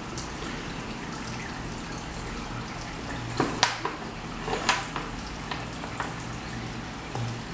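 Kitchen tap running steadily into a stainless steel sink, with several metallic clinks of a spoon being scrubbed against the sink and dishes, the loudest between about three and five seconds in.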